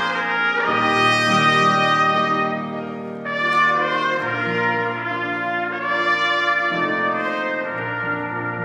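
Two trumpets playing a slow melody in long held notes over grand piano accompaniment, the notes changing every second or few seconds.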